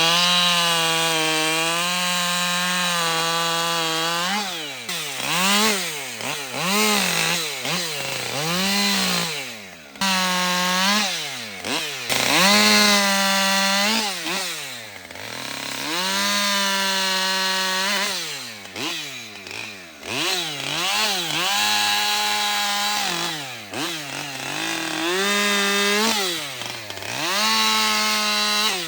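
Gasoline chainsaw cutting through limbs, held at high revs in the cuts. The revs drop and pick back up many times between cuts.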